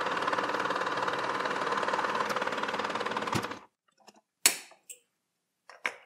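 Metal lathe running steadily as steel spring wire winds onto a rod held in the chuck, forming a compression spring; it stops abruptly about three and a half seconds in, followed by a few short, sharp clicks.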